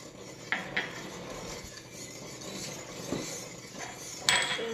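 Wire whisk stirring milk in a slow cooker's crock, with two light clicks about half a second in and a sharp clink near the end, the loudest sound.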